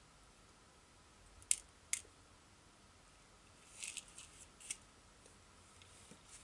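Metal tweezers clicking against a small clear plastic embellishment container while picking out sequins: two sharp clicks about a second and a half in, a short cluster of clicks near four seconds, then one more.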